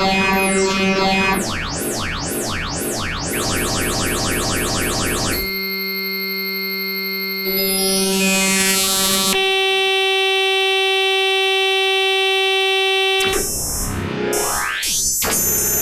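Black MIDI music played through a synthesized keyboard sound: thousands of notes in dense rising and falling sweeps, giving way about five seconds in to long held chords of many stacked tones, with fast upward sweeps near the end.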